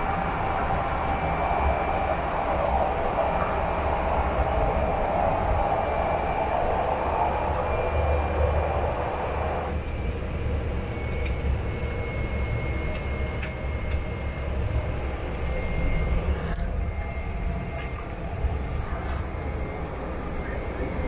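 Cessna Grand Caravan's Pratt & Whitney PT6A turboprop engine and propeller heard from inside the cabin during taxi: a steady drone with a thin whine over it. About ten seconds in the engine sound drops lower and quieter, and a few light clicks and rattles follow.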